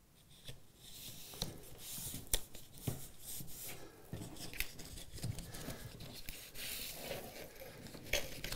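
Cardboard accordion-bellows strip being folded over a glued plastic-film strip and pressed down by hand on a wooden table: uneven rustling, scraping and small taps, starting about half a second in.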